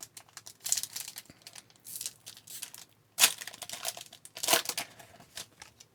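Crinkling and tearing of a hockey card pack's wrapper being ripped open and the cards pulled out, in several short rustling bursts.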